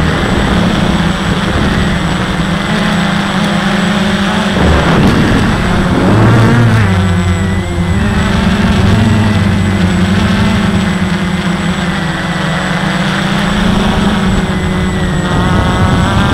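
Walkera QR X350 quadcopter's motors and propellers buzzing loudly right at the onboard camera, the pitch shifting with throttle changes, most clearly around five to seven seconds in.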